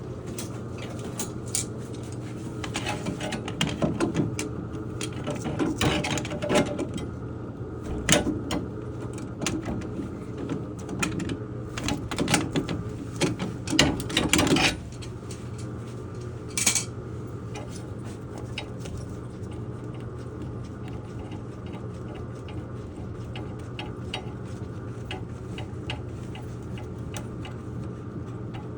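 Channel-lock pliers clicking and scraping on a metal fitting as the automatic air vent on a boiler's circulator pump is worked loose, in irregular bursts through the first half. A steady low hum runs underneath.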